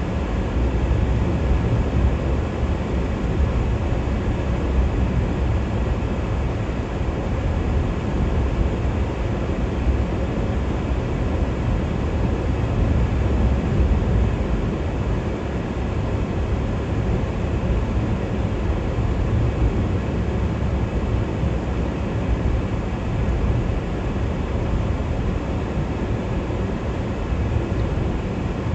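Car driving at highway speed: steady road and engine noise with a strong low rumble.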